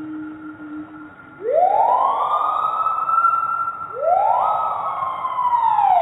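Screaming piha calls used as a reconstructed Cratoavis cearensis call: two loud whistled notes, the first sweeping up and held, the second rising and then falling away near the end.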